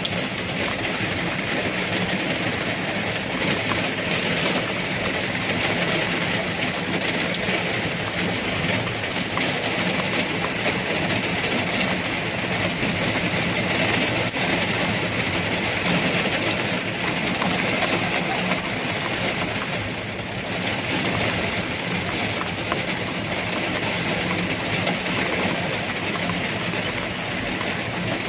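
Heavy rain falling steadily on a car's roof and windows, heard from inside the cabin, with a steady low hum underneath.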